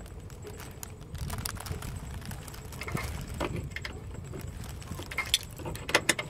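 A spanner working a tight 5/16 nut on an exhaust heat shield: irregular small metallic clicks and scrapes of the tool on the nut and shield, with a couple of sharper clinks near the end.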